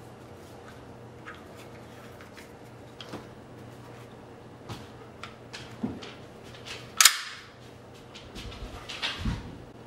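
Handling noises from a FN FNX-45 pistol being lifted and aimed: scattered small clicks and taps, one sharp loud click about seven seconds in, and a few clicks with a dull thump near the end.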